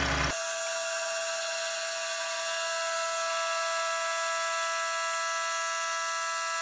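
Milling machine spindle running with a high-speed-steel ball-nose end mill cutting into a clamped block under coolant: a steady high-pitched whine with several overtones that starts abruptly just after a brief broad noise at the very start.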